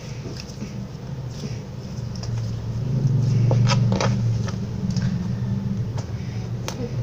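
A steady low hum that swells about three to four seconds in, with a few sharp clicks and light handling noises over it.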